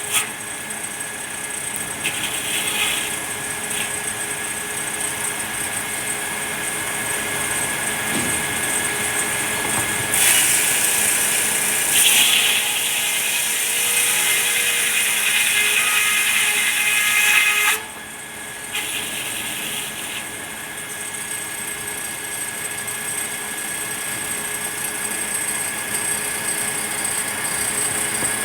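Sawmill saw running with a steady whine. About ten seconds in, a louder high rushing noise sets in as the blade cuts through red pine; it lasts about eight seconds and stops abruptly, leaving the saw running.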